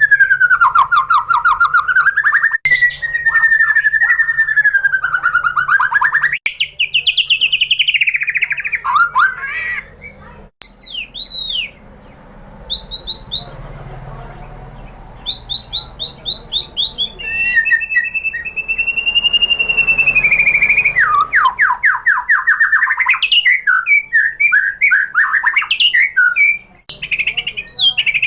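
White-rumped shama singing: long, rapid buzzy trills that waver up and down in pitch, broken about ten seconds in by a quieter stretch of short, higher whistled notes before the trills resume.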